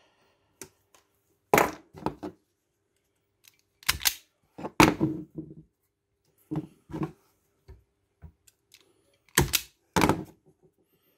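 Side cutters snipping thin motor lead wires: five sharp snaps, irregularly spaced, with softer ticks of handling in between.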